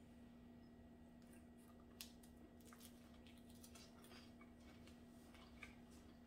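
Near silence: room tone with a steady low hum and a few faint clicks, the clearest about two seconds in.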